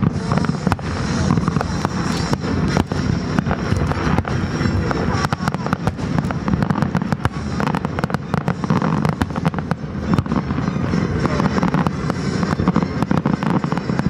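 Aerial fireworks shells bursting one after another in a dense, unbroken run of bangs and crackles.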